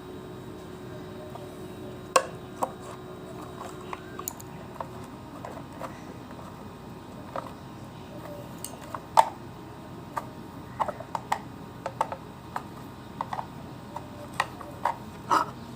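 Irregular light clicks and knocks of plastic parts and a hand tool as an electric iron's handle is being taken apart, over a steady low background hum.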